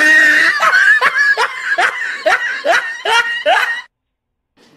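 A man laughing in a run of short bursts, two or three a second, that stops suddenly about four seconds in.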